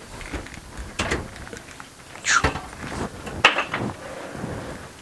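Knocks and scrapes from a Ram ProMaster passenger seat being wrestled up and off its base: a sharp knock about a second in, a scraping sweep a little after two seconds, and another sharp knock at about three and a half seconds, with smaller clicks between.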